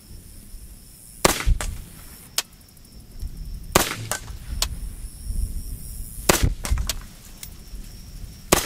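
Daewoo K1A1 5.56 mm rifle fired in slow, deliberate single shots: four shots about two and a half seconds apart, with fainter sharp cracks between them.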